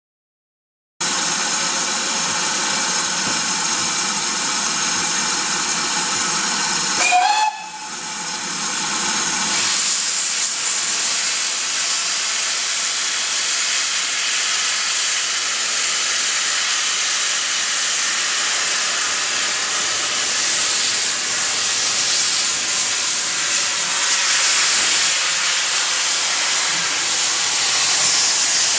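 GWR 57xx pannier tank steam locomotive with its cylinder drain cocks open, hissing steam steadily as it moves along the platform. For the first six seconds a held steam-whistle note sounds over the hiss, and it cuts off about seven seconds in.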